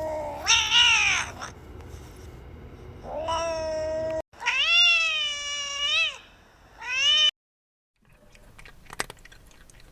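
Cat meowing several times: long drawn-out meows held at one pitch, alternating with shorter meows whose pitch dips and rises. The meows are followed by a few faint clicks near the end.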